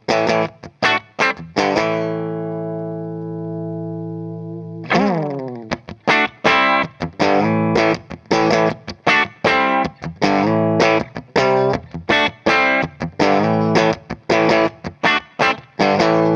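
Electric guitar, a Gibson Les Paul, through the AmS Tornado 20 amp, a 20-watt single-channel valve amp with two EL84 power valves, set to crunch and driving a 1x12 cab with a Celestion Alnico Cream speaker. With the guitar's volume knob partly rolled back, it plays lightly overdriven choppy chords. One chord is left ringing for about three seconds, then a slide falls in pitch about five seconds in, and more choppy chord riffing follows.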